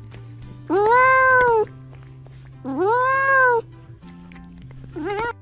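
Domestic cat meowing: two long meows that rise and fall in pitch, about two seconds apart, then a short one near the end, over steady background music.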